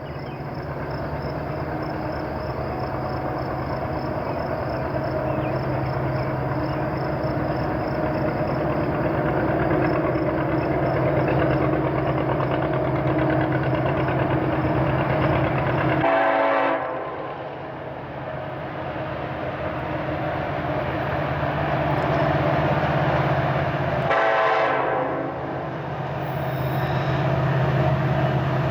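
Diesel-electric locomotives of a heavy loaded coal train working hard up a steep grade, their engine drone building as they approach. About 16 seconds in and again about 24 seconds in, the locomotive horn sounds for the grade crossing.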